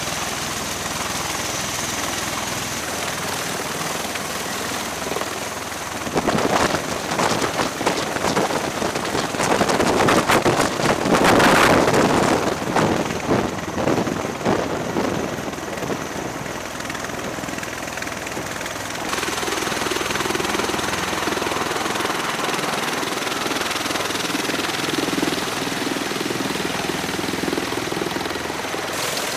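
MV-22 Osprey tiltrotor's twin turboshaft engines and proprotors running on a ship's flight deck. The sound turns loud and choppy, with pulsing rotor wash, from about six seconds in as the aircraft lifts off, and is loudest around eleven seconds. From about nineteen seconds it is steady again.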